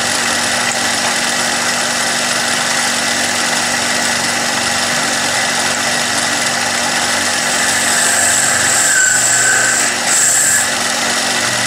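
Billiard cue lathe running steadily while a tip shaper's blade cuts the spinning layered leather cue tip to shape. A higher whine joins and grows louder for a couple of seconds near the end.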